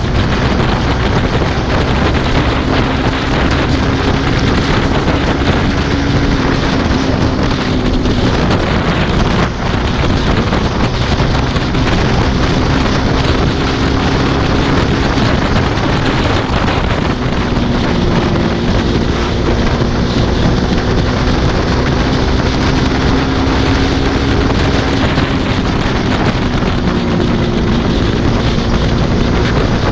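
Motorcycle engine droning at highway speed, about 100 km/h, its pitch shifting a little now and then, under heavy wind rush on the microphone.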